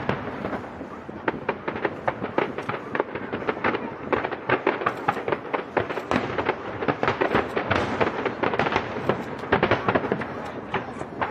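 Fireworks display going off: a dense run of sharp cracks and bangs, several a second, over a steady rumble of bursts.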